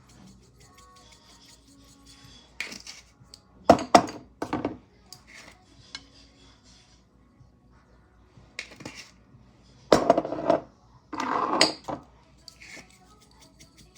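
Kitchen dishes and utensils clattering and scraping while a meal is prepared, in a handful of short knocks and a couple of longer scrapes, the loudest about four seconds in and again near the end, over quiet background music.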